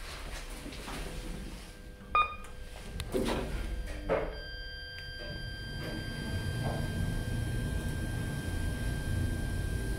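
KONE Monogoods goods lift: a short electronic beep about two seconds in, then two knocks, then the car sets off with a low rumble and a steady high whine as it travels.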